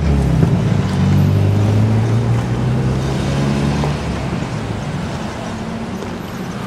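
A motor vehicle's engine running nearby, a low steady hum that fades out about four seconds in.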